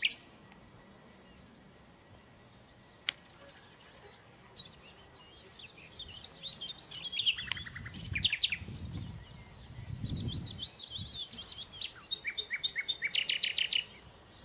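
Small songbirds chirping and singing after a quiet few seconds, ending in a fast run of evenly repeated notes. There is a single sharp click about three seconds in and a few low rumbles midway.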